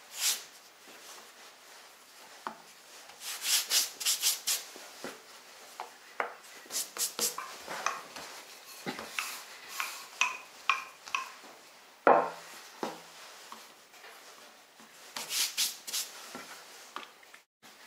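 Hands working puff pastry dough on a wooden board. A wooden rolling pin rolls the dough out, with quick brushing strokes and light rubbing as the excess flour is brushed off and the dough is folded in thirds. One sharp thump about twelve seconds in is the loudest sound.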